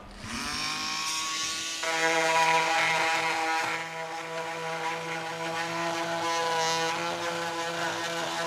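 Festool Vecturo OS 400 oscillating multitool starting up, its buzz rising in pitch over the first second, then getting louder and rougher about two seconds in as the blade cuts into the wooden door frame, holding a steady buzz while it saws.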